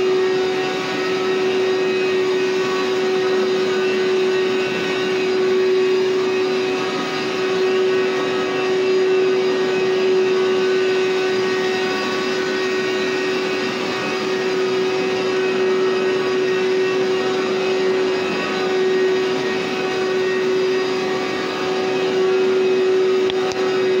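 Hoover SteamVac Wide Path carpet cleaner running, its motor giving a loud, steady whine with an even rushing noise beneath.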